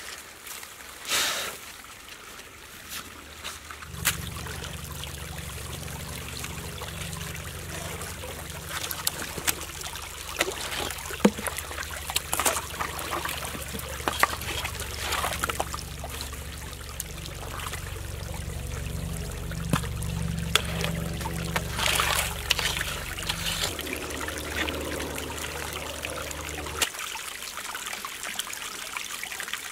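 A small stream trickling over stones and mud, with splashes and clicks as hands work in the water. A steady low hum lies beneath from about four seconds in until near the end.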